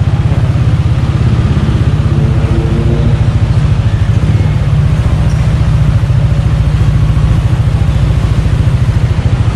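Motorcycle engine running steadily close by, a low, rapid pulsing rumble.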